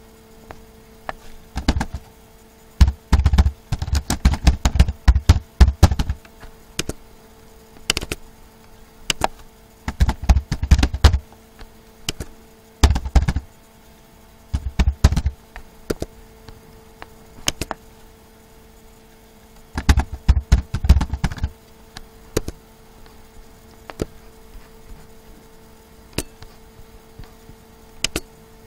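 Computer keyboard typing in short bursts of rapid keystrokes, with single clicks in between, over a faint steady hum.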